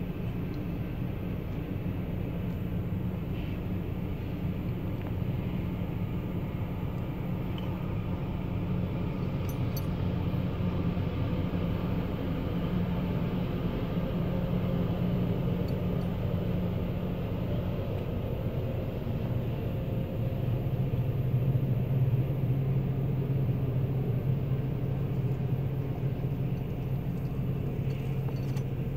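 Loram rail grinder train rolling past at a grade crossing, a steady low rumble with an engine drone that shifts lower about two-thirds of the way through, heard from inside a car.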